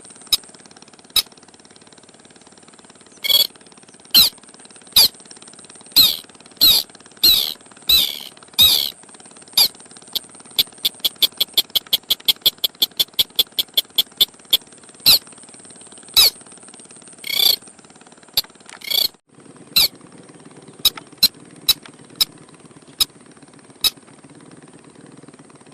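Lure recording of a ruddy-breasted crake's call: sharp, high notes given singly at irregular intervals, with a quick run of about five notes a second between about ten and fifteen seconds in, over a steady high hiss.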